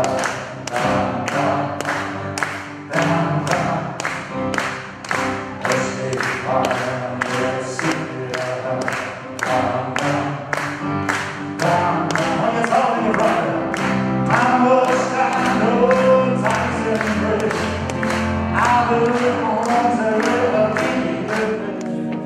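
A group of amateur voices singing along to music with a steady beat of about two strokes a second.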